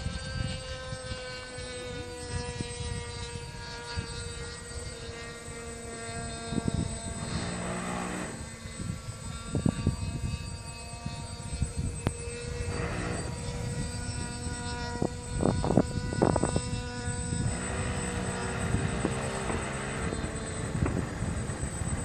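A multirotor drone's motors and propellers whining in a steady buzz of several pitches. The pitch drops slightly in the first few seconds, then holds. Wind rumbles on the microphone throughout.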